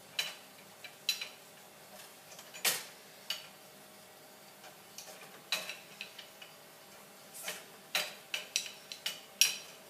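Steel wrenches clicking and clinking on a refrigerant line coupling as it is tightened with two wrenches: scattered sharp metallic clicks, the loudest about three seconds in. Tightening the coupling, which was only hand-tight, is the cure for it icing up.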